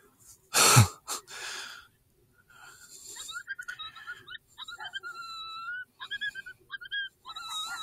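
A single 6.5 Grendel rifle shot about a second in, followed by a run of high, wavering yelping calls that rise and fall in pitch.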